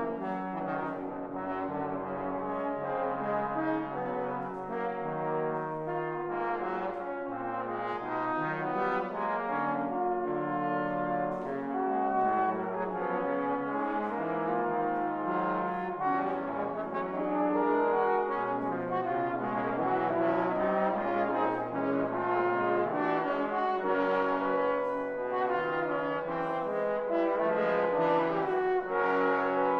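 Trombone quartet playing: four trombones sounding together in harmony, holding notes and moving from chord to chord.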